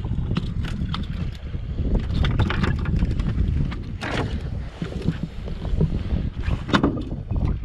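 Wind buffeting the microphone on a small open boat, a steady low rumble, with scattered short knocks and rustles from handling a fish and knife on the deck.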